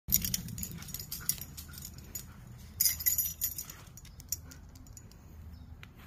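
Metal tags on a husky's collar jingling in short bursts as the dog moves, loudest about three seconds in, over a low steady hum.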